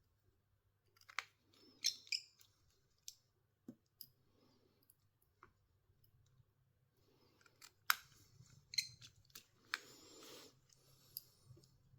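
Small hand tools and plastic and metal smartphone parts clicking, tapping and scraping as the phone is worked on and reassembled; irregular sharp clicks, with a short scrape about ten seconds in.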